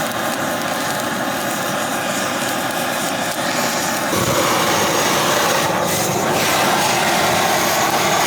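Butane blowtorch burning with a steady rushing hiss, a little louder about four seconds in.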